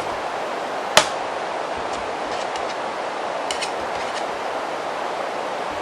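A single sharp plastic snap about a second in, with a few fainter clicks later, as a laptop's plastic case is pried apart with a butter knife and its internal clips give. Under it runs a steady hiss of recorder noise.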